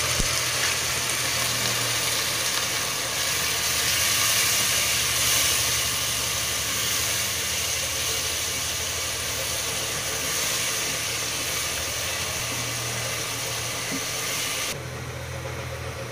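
Spice paste of onion, ginger-garlic and ground spices with a little water sizzling and bubbling in a cooking pot as it is fried down, over a steady low hum. Near the end the sizzle turns much quieter.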